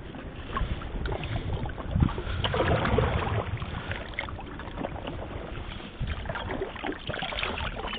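Water sloshing and splashing as a hand net is swept through shallow water along submerged concrete and rocks, with scattered small splashes and a slightly louder stretch about two seconds in.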